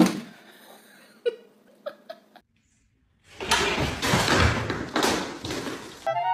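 A sharp knock, then after a short silence nearly three seconds of loud clattering with several knocks, as a cat scrambles on a wooden shelf and a metal pot falls to the floor.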